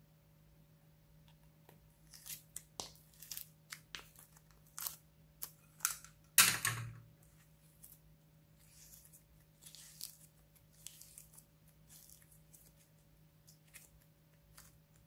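Fluffy slime being pulled from its tub and stretched by hand, giving sticky crackling and tearing sounds. A run of small sharp crackles builds to one loud tear about six and a half seconds in, followed by softer crackles.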